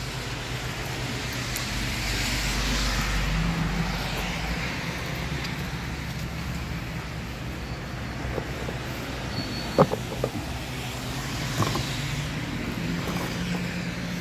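Road traffic passing on wet roads, its tyre hiss swelling and fading twice over a steady low hum. Two sharp clicks come about ten and twelve seconds in.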